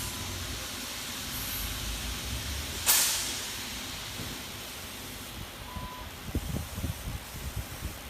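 Steady hiss from a running fiber laser marking machine, with one sharp, loud burst about three seconds in that fades over a second, a short beep about six seconds in, and a few low knocks near the end.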